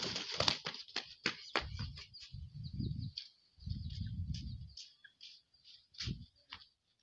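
Birds chirping in many short, high-pitched notes, densest in the first two seconds and thinning out later, over bursts of low rumble in the first five seconds.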